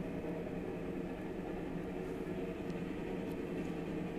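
Steady low background hum and hiss: the room tone of a large locomotive shed, with no distinct event.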